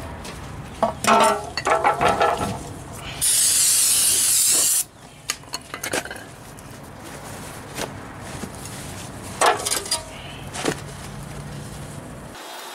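Knocks and clatter as the transmission oil pan is handled, then a steady hiss of an aerosol can spraying, likely brake cleaner onto the pan, for about a second and a half. A few more knocks follow later.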